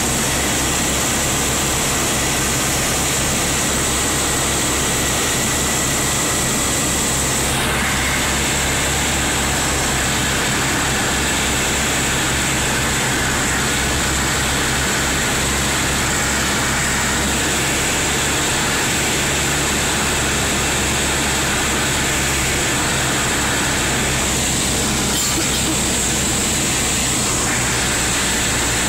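Cabin noise of a Beechcraft BE-76 Duchess on final approach: its twin four-cylinder Lycoming engines and propellers running steadily, a constant drone with hiss over it. The tone shifts slightly about eight seconds in.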